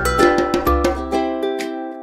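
Background music: a plucked string tune in quick notes over a low bass that drops out about a second and a half in.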